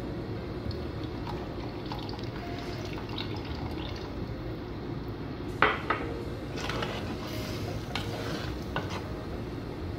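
A spoon scraping and stirring thick masala in a clay pot as tamarind juice is tipped in from a small bowl, with two sharp knocks against the pot a little past halfway. A steady low hum runs underneath.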